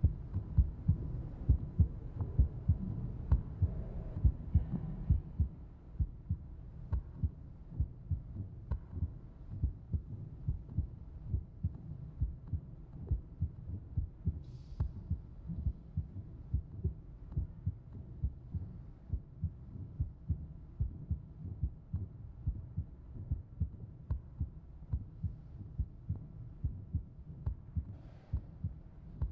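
A steady pulse of soft, low thumps, about two a second, over a faint hum.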